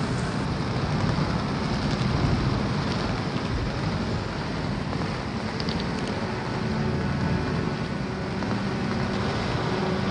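Steady heavy rain falling in a downpour.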